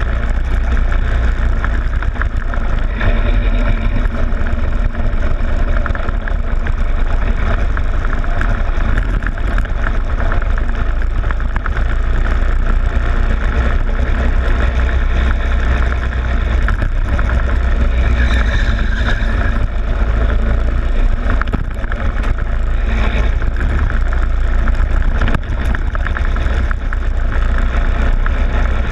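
Go-kart engine running at racing speed, heard from a camera mounted on the kart's front plastic fairing, with a heavy low rumble underneath.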